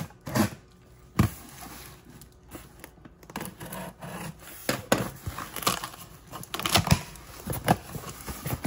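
A cardboard shipping box being opened by hand: packing tape tearing and cardboard flaps scraping and rubbing, with irregular sharp knocks of the box being handled, the sharpest about a second in.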